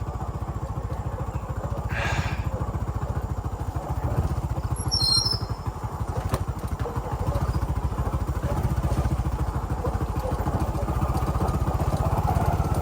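Motorcycle engine running at low, steady speed, its rapid firing pulses continuous, with a short hiss about two seconds in and a brief high chirp near the middle.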